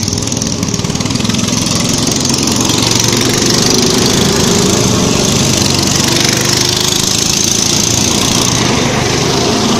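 Small go-kart engine running as a kart drives past close by, growing louder over the first few seconds and staying loud.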